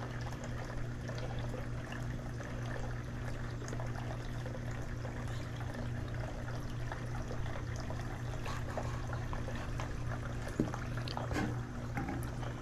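Steady low electric hum under an even rushing noise like running water, with a couple of light taps near the end.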